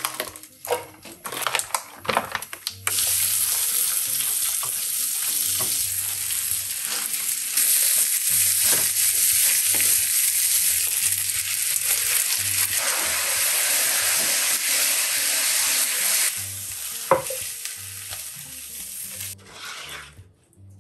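Yakisoba noodles, cabbage and vegetables frying in a hot oiled frying pan while being stirred with a spatula: a loud, steady sizzle that starts suddenly about three seconds in, after a few light clatters, and stops abruptly shortly before the end.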